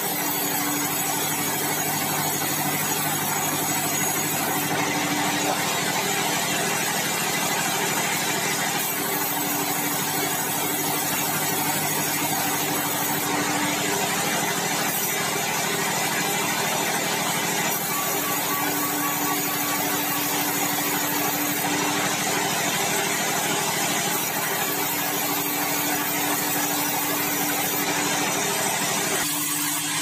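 Sawmill band saw running steadily while ripping red meranti timber into boards: a continuous machine hum with the hiss of the blade in the wood.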